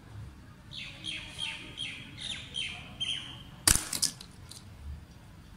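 A bird gives a string of short chirps, about two or three a second. Then comes one sharp crack from the National Model 35 air rifle's shot knocking an AA battery off a concrete slab, followed by a few light clinks as the battery lands.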